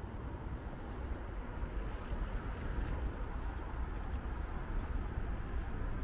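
City street ambience: a steady rumble of road traffic that slowly grows louder, as of a vehicle approaching.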